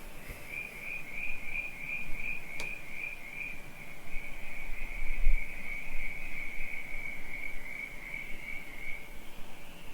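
Cricket chirping in one continuous high trill, pulsing a few times a second at first and then running evenly, sinking slightly in pitch toward the end. A single sharp click sounds about two and a half seconds in, and a brief low rumble comes about halfway.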